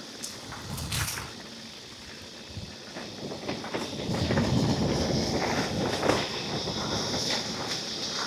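Mountain bike riding down a dirt trail: tyres running over dirt, with scattered clicks and rattles from the bike. It gets louder about four seconds in, when a steady high buzz joins.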